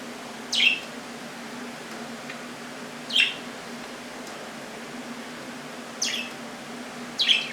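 Pet budgerigars giving short, sharp chirps, about four of them a few seconds apart, each one sliding down in pitch, over a faint steady hum.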